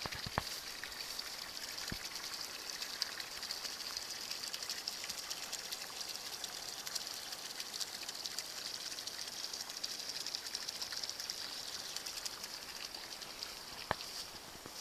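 Water running and trickling steadily as a flooded rice paddy drains through a cut in its levee, with many small splashes and a few light knocks.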